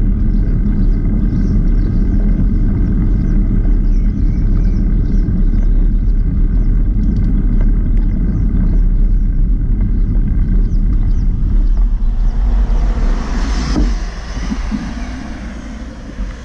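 Wind rumbling on a bicycle-mounted camera's microphone while riding along paved road, with tyre noise underneath. About thirteen seconds in the low rumble eases and a brighter hiss swells.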